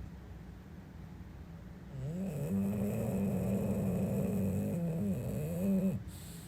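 English bulldog snoring: a low, quiet rumble at first, then from about two seconds in a louder snore with a humming note that wavers in pitch. It lasts about four seconds and stops abruptly near the end.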